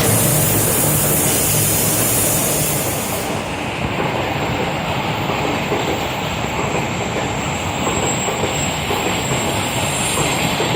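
A train running on the track, a steady rumble with a high hiss over the first few seconds, then a thin high tone that holds from about four seconds in.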